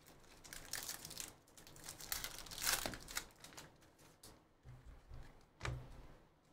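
Foil wrapper of a Panini Prizm football card pack crinkling and tearing as it is opened, loudest about three seconds in. Then softer handling of the cards, with a couple of soft bumps near the end.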